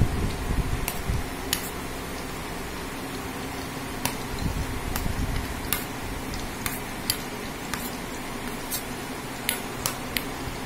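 Metal spoon stirring teasel gourd slices through thick batter in a stainless steel bowl, the spoon clinking lightly against the bowl about a dozen times at irregular intervals. A steady fan-like hiss runs underneath.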